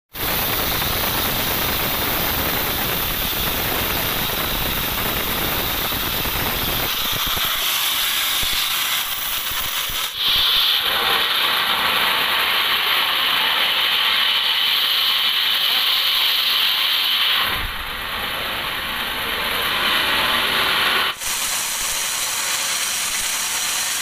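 Sawmill band saw running and cutting lengthwise through a teak log: a steady hiss of the blade in the wood, with a high whine through the middle stretch. The sound changes abruptly about ten seconds in and again about three seconds before the end.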